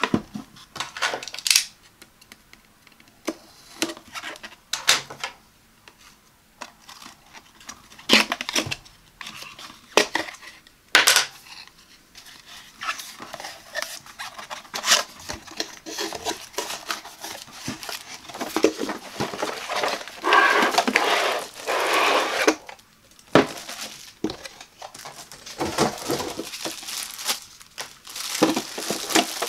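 Close-up handling of a cardboard box: sharp taps and knocks as it is turned over and its flaps opened, then a longer run of rustling and scraping as the coffee pod drawer comes out in its plastic bag, with plastic crinkling near the end.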